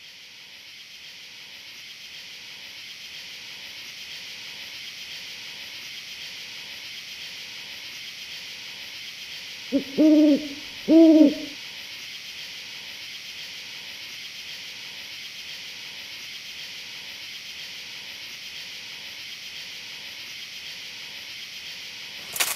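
An owl hooting two or three times about ten seconds in, over a steady high-pitched hiss that fades in at the start. A short crackle just before the end.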